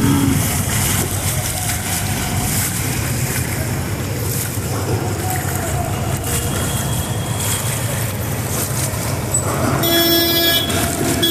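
Traffic running through floodwater on a street: water churning and splashing under the wheels over a steady low engine hum. About ten seconds in, a car horn starts sounding and is held.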